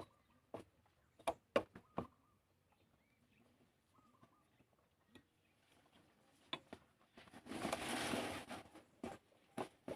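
Sharp clicks and knocks of tools and parts being handled during motorcycle repair work, with a brief rustling hiss lasting about a second and a half near the end. Faint bird chirps in the background.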